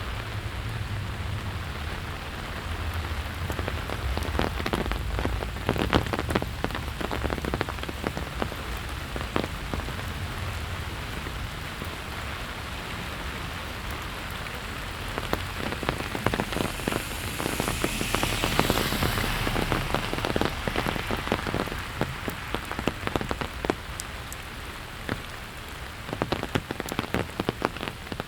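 Steady rain falling, with many close drops ticking sharply on hard surfaces. About two-thirds of the way through, a broad hiss swells up and then fades.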